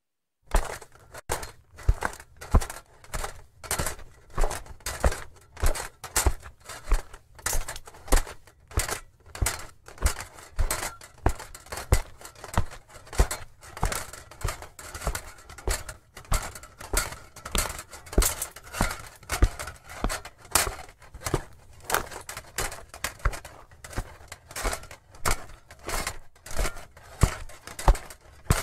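Footsteps of an armoured medieval knight walking at a steady pace, about one and a half steps a second.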